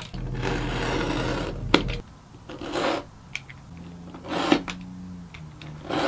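Utility knife blade drawn through leather along a steel ruler, a scraping cut. One long stroke lasts about two seconds, then come shorter strokes about a second later and again near the middle, with a few light clicks.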